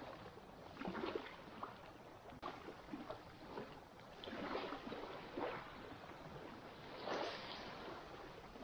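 Faint water lapping and splashing against a boat's hull, coming in uneven swells.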